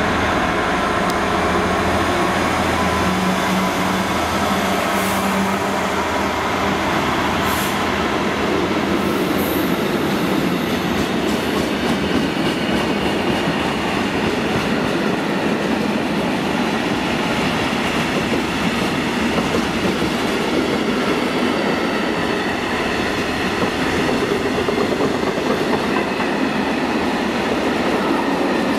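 A Class 66 diesel freight locomotive runs through with its engine droning for the first few seconds. A long rake of covered steel-coil wagons then rumbles and clatters steadily past on the rails.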